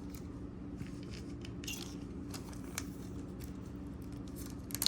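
Scattered light clicks and clinks of costume jewelry pieces being handled and set down, with a few taps near the end, over a steady low hum.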